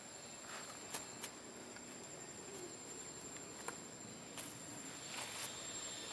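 Faint outdoor ambience: a steady high-pitched insect drone, with a few scattered light clicks and ticks.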